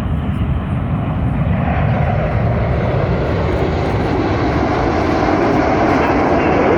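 Jet noise from the Red Arrows' BAE Hawk T1 trainers flying overhead during their display: a steady rushing roar that grows gradually louder from about two seconds in.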